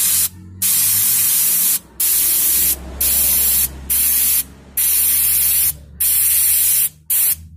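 Compressed-air paint spray gun hissing in about seven short bursts, each half a second to a second long with brief gaps, as the trigger is pulled and released to spray a base coat of paint.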